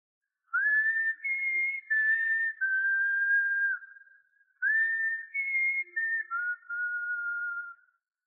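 A whistled tune: two phrases of long held, pure notes that each open with a quick upward slide, stepping between a few pitches and then stopping, with a short gap between them.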